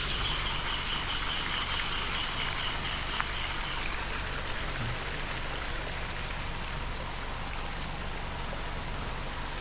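Steady rush of water overflowing from a reservoir and flowing downhill. A faint, high, rapid trill sits over it for the first few seconds.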